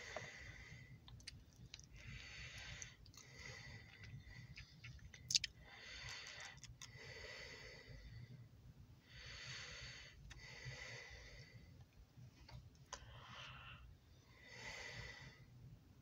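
Faint, slow breathing close to the microphone, each breath a soft hiss with a thin whistle in it, coming every couple of seconds over a steady low rumble. A sharp click comes about five seconds in.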